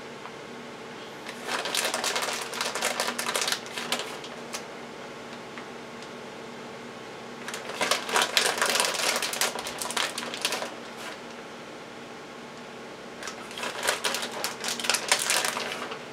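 Plastic bag of shredded cheddar crinkling in three bouts as handfuls of cheese are pulled out and sprinkled.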